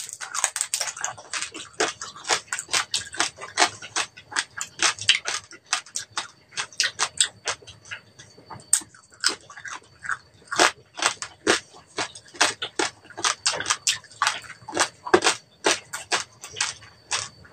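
Crunching and chewing of crispy deep-fried pork head skin (crackling): a sharp bite right at the start, then a steady run of crisp crunches, several a second.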